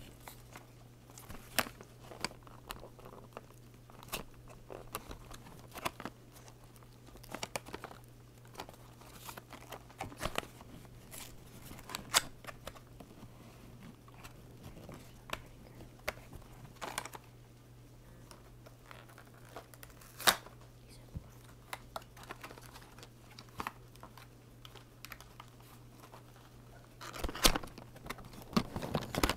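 A cardboard and plastic toy track box being opened by hand: scattered tearing, crinkling and sharp clicks, busiest near the end, over a faint steady low hum.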